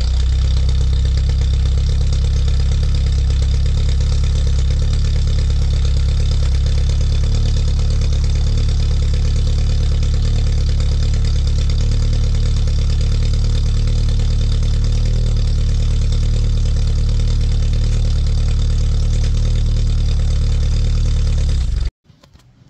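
1983 Toyota Tercel wagon's four-cylinder engine idling steadily at the exhaust, warming up after a cold start in freezing weather. It cuts off abruptly near the end.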